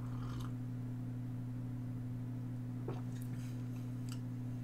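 Steady low background hum, with a faint sip of tea from a mug at the start and a few faint mouth clicks about three seconds in as the tea is tasted.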